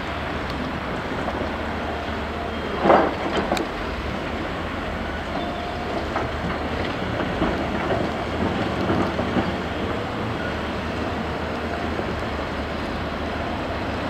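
Diesel engine of a Caterpillar 324D excavator and a waiting articulated dump truck running steadily, with a loud clatter of rock dropped from the excavator's bucket into the steel bed of the dump truck about three seconds in. Lighter knocks and scraping follow as the bucket goes back to digging the rock.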